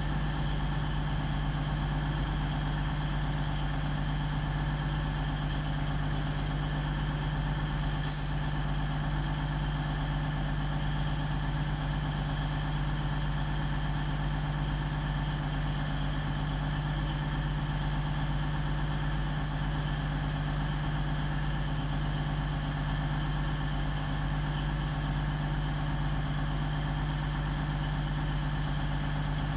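A standing train idling with a steady hum from its engine or traction equipment, unchanging throughout, with two faint clicks about eight and twenty seconds in.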